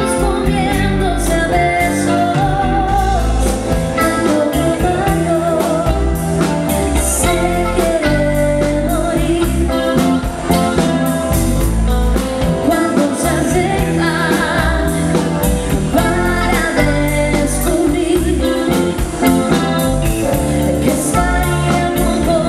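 Live pop-rock band playing: a woman sings lead over electric bass, electric guitar, keyboards and drums, with a steady drum beat.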